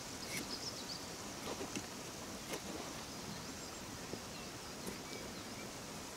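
Knife working a wooden stick, a few sharp clicks of the blade against the wood, over small birds chirping in the background.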